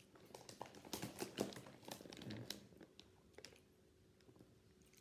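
Snack bag of Cheez-It Crunch crackers crinkling as it is handled: faint, with a dense run of small crackles over the first three seconds that then dies away.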